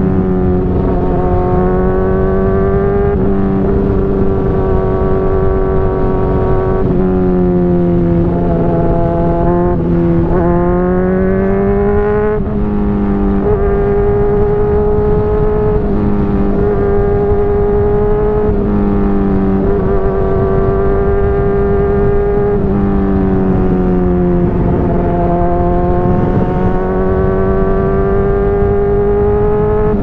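Honda CBR600RR inline-four engine running through a Hotbodies Stinger slip-on exhaust under way. Its pitch climbs and drops every few seconds with throttle and gear changes, over a steady rush of wind.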